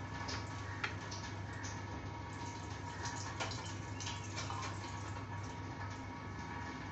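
Soft, irregular taps and rustles of hands pressing flour onto raw chicken drumsticks on a plate, over a steady low hum.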